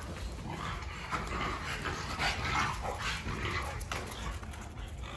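American Bully dogs play-fighting, making rough, irregular dog noises in short bursts as they wrestle.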